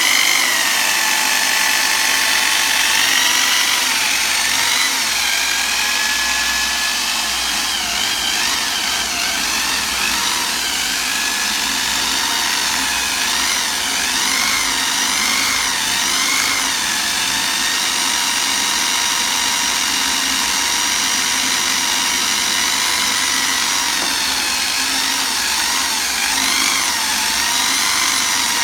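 A 1929 Harley-Davidson Model DL generator spinning on a bench test, with a steady high electric-motor whine that wavers up and down in pitch as its speed varies.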